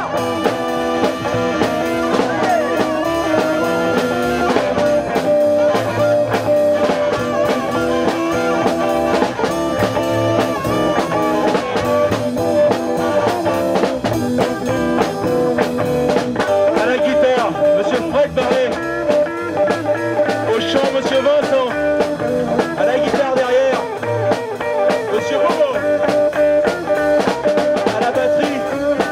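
Live blues band playing, with electric guitars over a drum kit.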